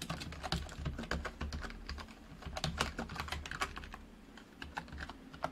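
Typing on a computer keyboard: a quick, irregular run of key clicks, with a short lull about four seconds in.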